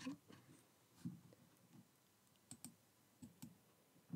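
Near silence with a few faint, scattered light clicks and taps of card stock being handled and set down on a craft cutting mat.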